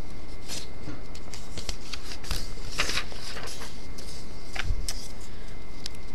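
Paper worksheet being turned and moved on a desk: a string of crisp paper rustles and crackles, loudest about three seconds in and again shortly before the five-second mark.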